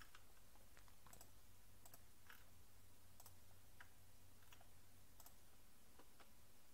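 Faint computer mouse clicks, about ten at irregular intervals, over a quiet, steady low hum.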